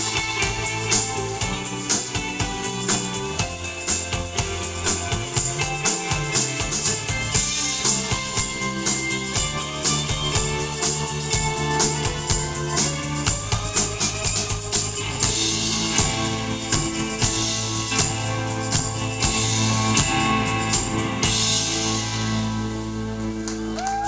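Live band playing an instrumental passage: electric guitar over a drum kit keeping a steady beat with regular cymbal hits. About three seconds before the end the drums drop away and held notes ring on.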